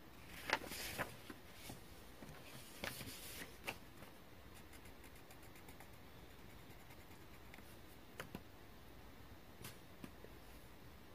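Cross-stitch needle and embroidery floss working through black 14-count cross-stitch fabric: a handful of sharp pokes and short rustling pulls of thread, with a quick run of fine ticks about five seconds in and a few more pokes later.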